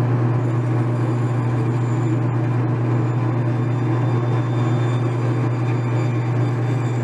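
Bandsaw running with a steady low hum while a glued-up hardwood cutting board is pushed through the blade, trimming off the leftover scrap lip.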